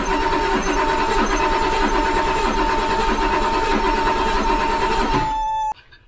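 1984 BMW 733i's 3.2-litre inline-six cranking on the starter without firing, then cutting off suddenly near the end. The cranking is uneven, which the owner suspects may be low compression in one cylinder; the no-start itself he puts down to a fuel problem. A steady high warning tone sounds over it.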